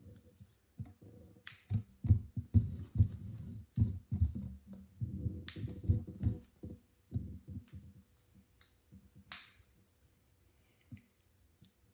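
Handling of small plastic toy-set pieces on a wooden table: a busy run of dull knocks and bumps, quieter in the last few seconds, with three sharp plastic clicks about four seconds apart.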